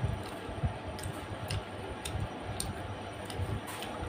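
Close-up chewing of chicken feet in curry: wet mouth clicks and lip smacks at an irregular pace, about one or two a second, over low chewing thumps.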